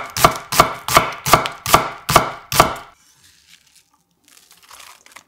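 Chef's knife slicing through an onion onto a wooden cutting board: about seven crisp, evenly paced cuts, a little over two a second, stopping about three seconds in.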